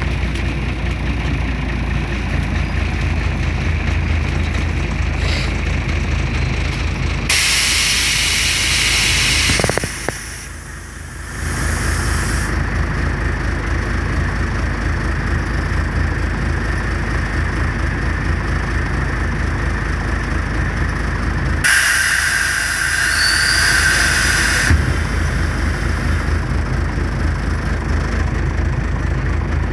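A Scania CN113CLB city bus's engine idling steadily, heard inside the passenger cabin. A loud hiss of compressed air comes about seven seconds in as the pneumatic doors open, and another, with a steady whistling tone in it, comes about twenty-two seconds in as they close.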